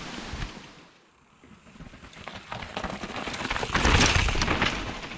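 Mountain bike on a dirt trail: tyre noise on the ground with many small clicks and rattles. It drops to quiet about a second in, then builds to a loud rush around four seconds in.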